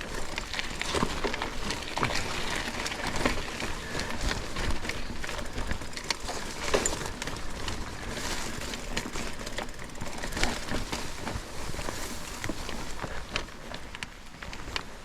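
Irregular crunching, clicking and rattling of someone moving over rough, overgrown ground, with many short knocks scattered throughout.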